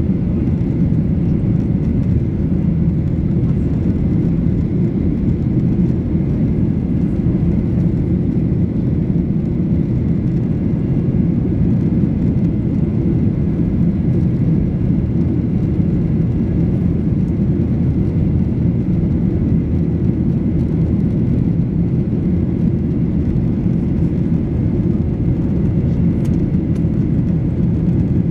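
Steady cabin noise inside a Boeing 737-800 airliner in flight: the low roar of its CFM56-7B turbofan engines and the rushing air, with a faint steady whine over it.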